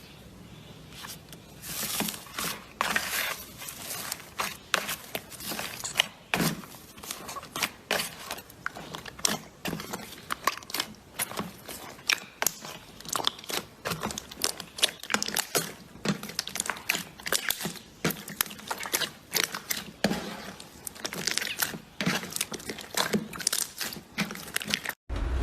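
Slime being squished and worked, giving dense, irregular crackling and popping clicks.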